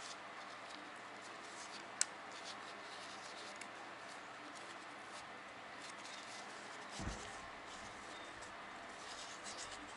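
Gloved hands handling an engine piston and its piston rings: small metal ticks over a faint steady hiss, one sharp click about two seconds in, and a dull thump about seven seconds in.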